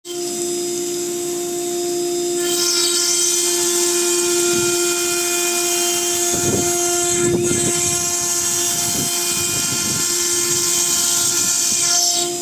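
CNC router spindle running with a steady whine. About two seconds in, a loud, shrill whine of many tones joins as the bit cuts into stone, with some lower grinding pulses midway, and it drops away just before the end.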